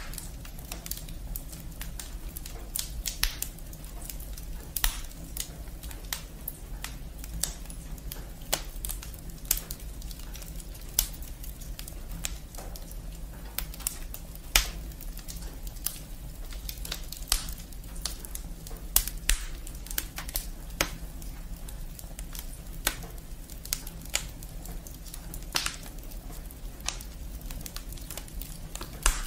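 Wood fire burning in a brick fireplace: the firewood crackles and pops with frequent, irregular sharp snaps, a few of them louder, over a low steady background.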